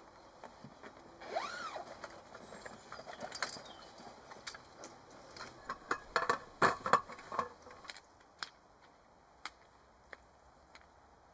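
A zip pulled open about a second in, then a quick run of clicks and knocks as a roll-up wooden-slat camp table is laid out and fitted onto its metal folding frame, loudest a little past halfway. A few single clicks follow near the end.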